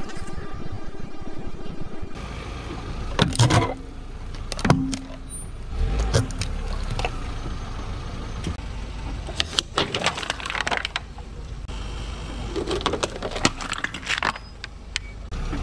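Car tyre rolling slowly over objects on concrete, with a low engine rumble and a string of sharp cracks and crunches as things are crushed under it, among them small metal cans of sterilized milk.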